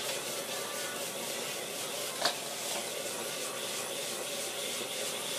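Stir-fry sizzling in a wok over a gas flame while a metal ladle stirs and scrapes the food against the pan, with one sharp clang of the ladle on the wok a little after two seconds in.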